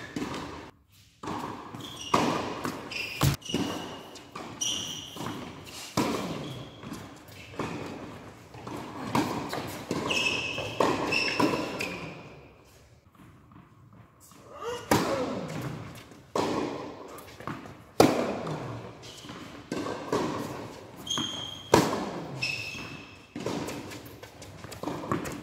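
Tennis balls being struck by rackets and bouncing on an indoor hard court in rallies, sharp hits about a second apart echoing through a large hall, with short high squeaks of shoes on the court surface. The hitting stops for a couple of seconds midway between points.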